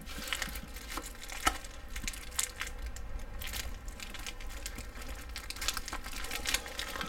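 Plastic packaging crinkling and crackling in irregular short bursts as a wrapped stick of uncured pepperoni is being cut into, with a few sharper crackles along the way.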